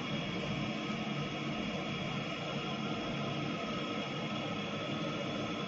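Steady background hiss with a few faint steady hum tones running through it; no distinct events.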